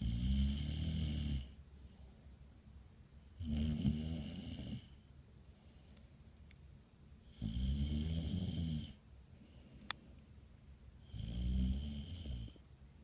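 A sleeper snoring heavily: four long, rumbling snores, each about a second and a half, coming at an even pace of roughly one every four seconds.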